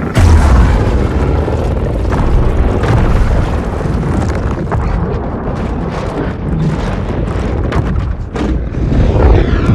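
Evolved Godzilla sound effect: a sudden heavy blast that carries on as a rumbling, crackling wall of noise, with sharp cracks through the middle and a swell near the end, like a destructive explosion or energy blast.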